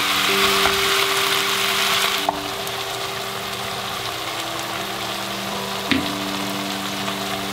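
Cabbage and pork sizzling as they are stir-fried with black bean paste in a frying pan and stirred with a wooden spatula. The sizzle is loudest for the first two seconds and drops after a sharp knock, and a second knock comes about six seconds in.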